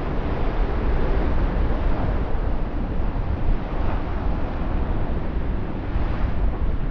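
Wind buffeting the microphone over the rush of sea water along the hull of a sailboat under sail, a steady noise with a heavy low rumble.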